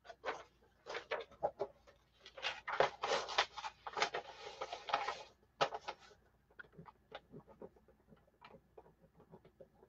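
Small irregular clicks and taps from hands handling things on a desk, with a short burst of scratchy rustling about four seconds in.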